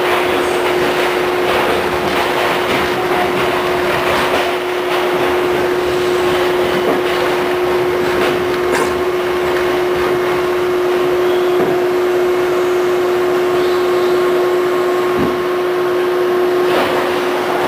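Westinghouse R68 subway car heard from inside as it slows along a station platform and comes to a stop, with a steady hum under the running noise and a few sharp clicks and rattles.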